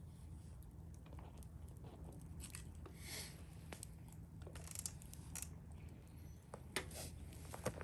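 Wood campfire crackling faintly: scattered small snaps and pops, coming more often in the second half, over a low steady hum.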